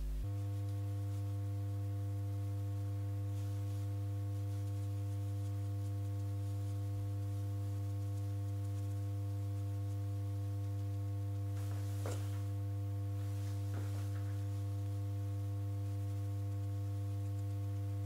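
A steady electrical hum, one strong low tone with fainter higher overtones, held at an unchanging level. Two faint soft clicks come in the second half.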